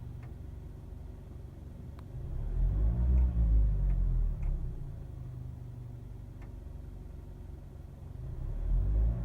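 New Mazda3's engine idling in Park, revved once from about two seconds in and settling back to idle, then revving again near the end. Faint sharp ticks come every second or two; the owner hears an abnormal noise during this throttle test and does not know its cause.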